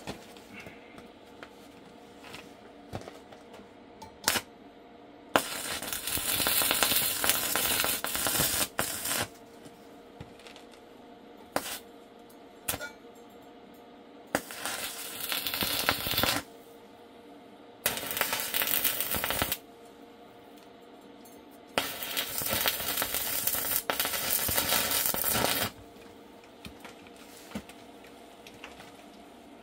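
Electric arc welding in four runs of a few seconds each: bursts of hiss that start and stop abruptly. A few sharp clicks fall between them, and a faint steady hum sits underneath.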